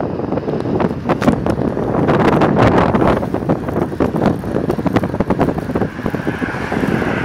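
Wind buffeting the microphone on a moving ride, with frequent knocks and rattles.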